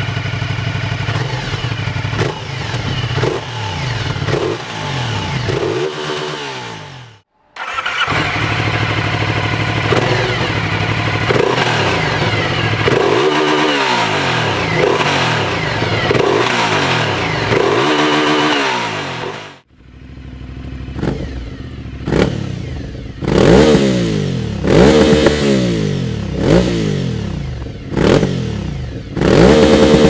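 Aprilia Dorsoduro 900's 90° V-twin idling on the stand with repeated short throttle blips, first through the stock exhaust with catalyst, then the stock exhaust with the catalyst removed (decat). From about two-thirds in it runs through a Dominator HP1 aftermarket silencer, whose blips come louder and sharper.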